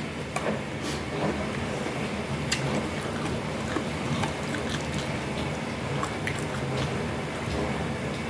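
Close-miked chewing and wet mouth sounds of someone eating, with scattered small clicks, over a steady low hum.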